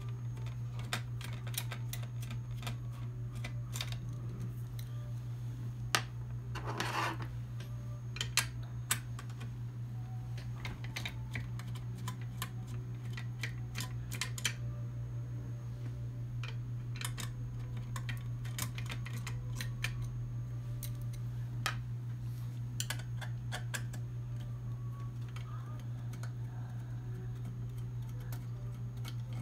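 Small screws being backed out of a circuit board with a hand screwdriver and set down: scattered light clicks and taps of metal on metal and on the desk, over a steady low hum.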